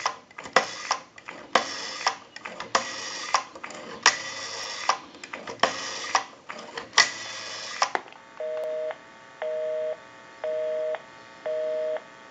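Rotary dial of a Northern Electric Galion desk telephone being pulled and released seven times, each return a short whirr of pulse clicks, the longer returns for the higher digits. Then, about eight seconds in, a busy signal sounds from the off-hook handset: a two-note tone pulsing on and off about once a second, meaning the number dialled is engaged.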